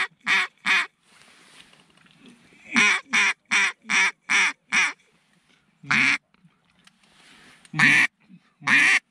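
A mallard duck call blown by a hunter: runs of about seven quacks at roughly three a second, a pause, then a few single, drawn-out quacks near the end, calling to incoming mallards.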